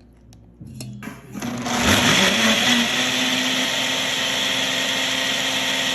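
Ninja Food Sense countertop blender: after a few light clicks, the motor starts about a second and a half in, rises in pitch as it spins up, then runs steadily at full speed, blending crepe batter.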